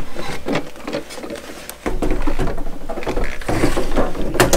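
Clicks and knocks of a Milwaukee M18 Packout radio's hard plastic case being handled. From about two seconds in there is heavier rubbing and bumping as the radio is tipped over on the tabletop, with a sharp click near the end.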